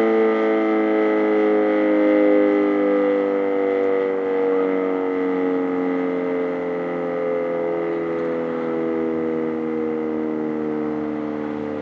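Sentry 10V outdoor warning siren sounding a chord of several tones. Its pitch slides slowly down and its level gradually drops, as in the siren winding down at the end of its tornado drill test signal.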